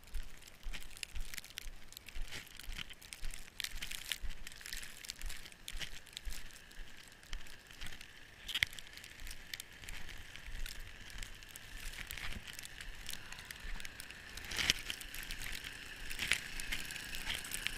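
Repeated crunching in deep snow, roughly two crunches a second, with a low rumble of wind on the microphone.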